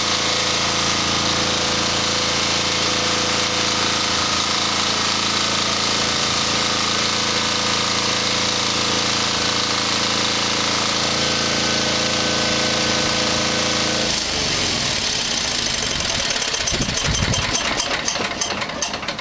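Diesel generator engine running steadily under a 1500-watt load. About fourteen seconds in, the steady hum breaks off, and an uneven, rougher noise with scattered clicks follows and fades near the end.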